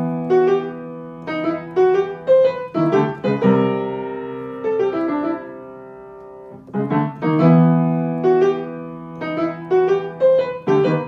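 Background piano music: a gentle melody of single struck notes that ring and fade over held low notes, the phrase starting over about seven seconds in.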